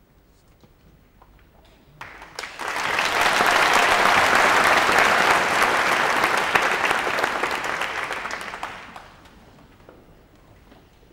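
Audience applauding: the clapping starts about two seconds in, swells quickly, holds for several seconds and dies away.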